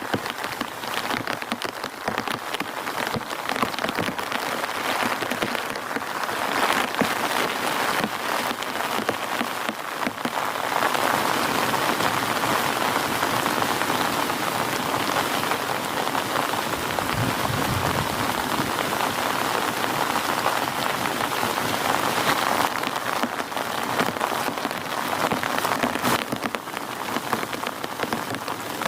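Heavy rain falling steadily, with many separate drop impacts. The downpour grows heavier about ten seconds in and eases again near the end.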